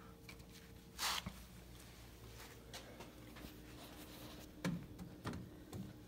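Quiet handling sounds: a brief rustle about a second in, a few faint clicks, and two soft knocks near the end.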